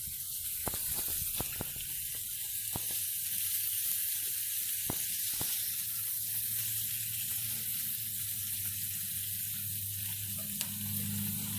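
Burgers sizzling on a grill, a steady hiss with scattered pops and crackles. A low hum runs underneath and grows louder near the end.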